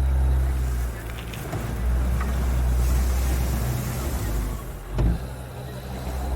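Caterpillar 277B compact track loader's diesel engine running under changing load while spreading gravel, with a single sharp knock about five seconds in.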